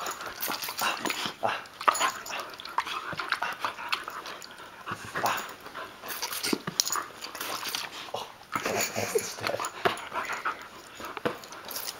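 Young yellow Labrador snapping and biting at squirts of water from a squeeze bottle: a quick, irregular run of short jaw snaps and clicks.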